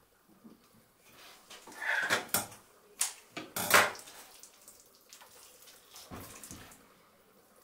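Hands working a raw, oiled turkey: short wet squelches and rubbing of the skin as the legs are tied with kitchen string and the bird is pressed into shape. There is a cluster of louder bursts between about two and four seconds in, and a softer one near six seconds.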